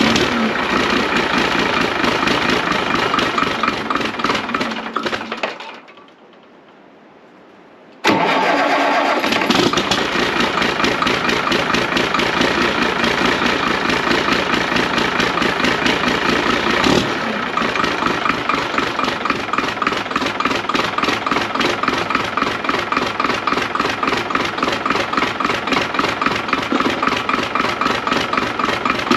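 Caterpillar diesel engine running just after a cold start on starting fluid. About five seconds in the sound fades to a short lull, then it comes back abruptly and runs steadily with a regular firing pulse.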